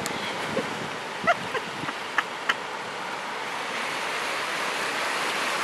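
Surf washing up and pulling back over a sandy beach. About half a second to two and a half seconds in come several short, high-pitched calls.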